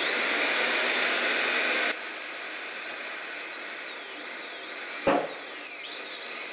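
Electric hydraulic pump of a 30-ton shop press switched on and running under load with a high whine, the ram pressing a stuck lathe tailstock quill out. The whine holds steady for a few seconds, then wavers up and down in pitch. About five seconds in there is a single sharp knock as the quill breaks loose and falls out.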